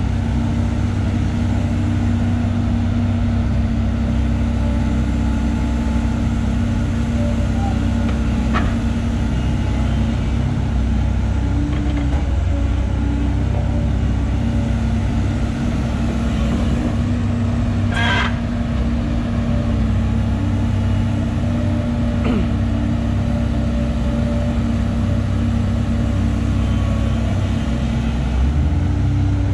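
Volvo EC210 crawler excavator's diesel engine running steadily through a dig-and-dump loading cycle into a dump truck. A few short sharp knocks break through, the loudest about two-thirds of the way in.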